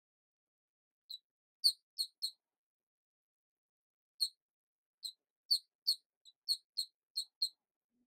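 Short, high-pitched squeaks, about a dozen in two quick runs with dead silence between: a dubbed squeak sound effect, not the balls themselves.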